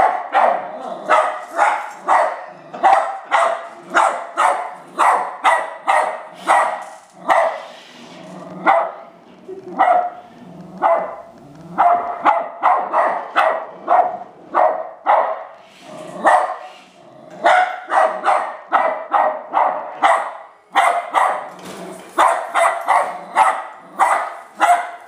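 West Highland White Terrier barking rapidly and repeatedly, about two to three sharp barks a second, with a few brief breaks.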